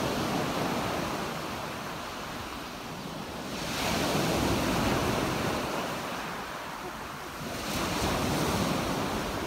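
Small waves breaking on a sandy beach and washing up the shore. Three breaks, each swelling and fading, about four seconds apart.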